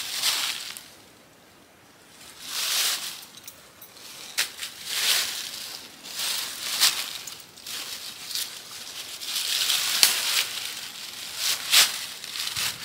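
Canvas tent fabric rustling and swishing in irregular swells as it is handled and pulled into place, with a few sharp clicks and the crunch of dry leaf litter underfoot.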